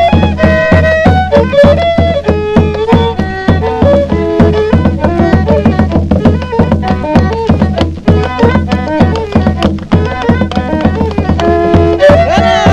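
Instrumental Argentine folk music from Salta: a melody of short, stepping notes over a quick, steady drum beat and a low sustained bass, with no singing.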